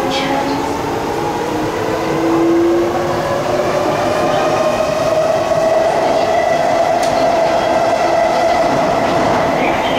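Kawasaki-CRRC Sifang C151C metro train's IGBT-VVVF traction inverter and motors whining as it accelerates, several tones rising slowly in pitch and levelling off in the second half, over the steady running noise of the train.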